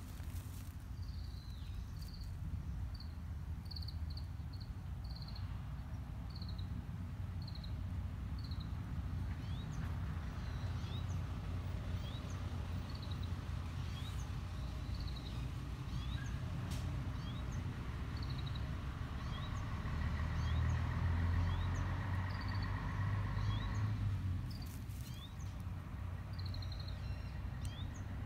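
Small birds chirping, short high notes repeated every second or so, over a steady low outdoor rumble of distant traffic that swells into a louder passing-vehicle hum about two-thirds of the way in, fading after a few seconds.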